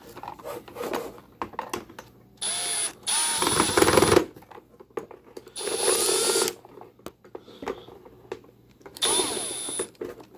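Milwaukee Fuel brushless cordless drill driving Phillips screws into a plastic housing in three short bursts, the first the longest. The motor's whine rises and falls in pitch within each burst, with small handling clicks between them.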